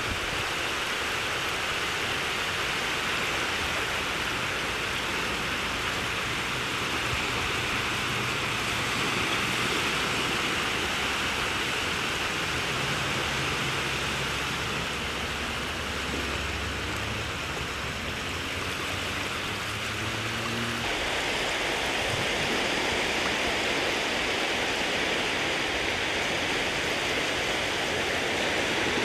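Steady wash of shallow sea water rippling and lapping at the water's edge, with a faint low hum through the middle stretch. The sound changes character abruptly about two-thirds of the way through.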